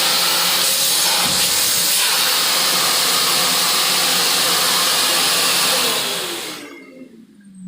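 An AmazonBasics 21-litre 1400 W vacuum cleaner running: a loud, steady noise of motor and rushing air. About six seconds in it is switched off, and the motor winds down with a falling whine.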